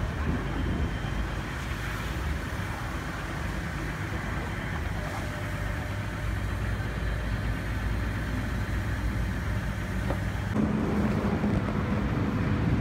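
Hyundai Verna's 1.6 CRDi diesel engine idling steadily after head-gasket work. About ten and a half seconds in the hum grows fuller and a little louder.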